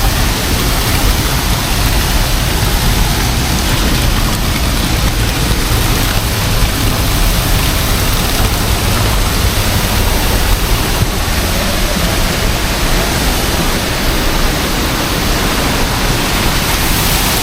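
Hot-spring waterfall pouring: a loud, steady rush of falling water.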